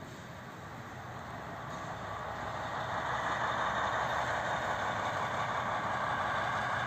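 SM42 diesel shunting locomotive running light, its engine and running noise growing louder over the first three seconds and then holding steady.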